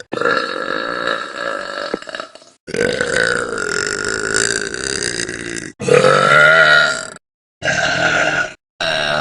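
Young women burping: about five long, drawn-out burps in a row, each cut off suddenly where one clip gives way to the next.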